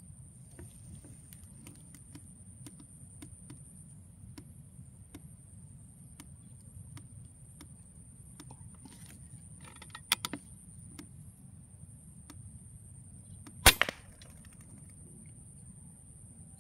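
Air rifle fired at a dove: a single sharp crack about three-quarters of the way in, preceded a few seconds earlier by a couple of quieter clicks.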